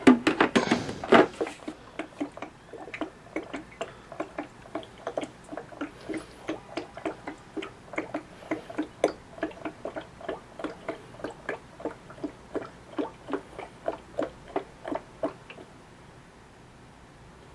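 Water tank of a Bionaire BCM7255 cool mist humidifier glugging as it drains into the base, air bubbles rising in a steady series of glugs about three a second that stop near the end. A louder clatter and splash at the very start as the tank is set in place.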